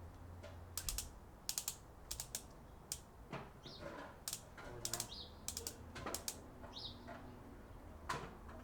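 Click-type torque wrench being worked on a car's lug nuts: a run of sharp, irregular clicks from the ratchet and the wrench breaking over at its set torque.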